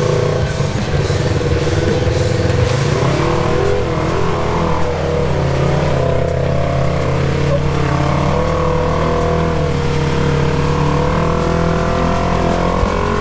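Side-by-side off-road vehicle engine running under load while driving, its pitch rising and falling with the throttle.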